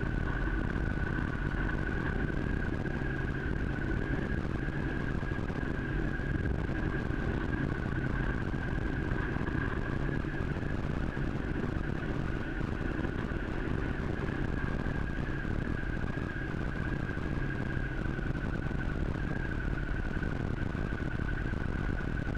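Steady rumble of a vehicle riding down a wet gravel mountain road, with a steady high-pitched whine running under it throughout.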